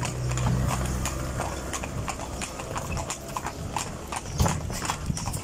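Hooves of a pair of carriage horses clip-clopping on an asphalt street, a quick uneven run of sharp clacks.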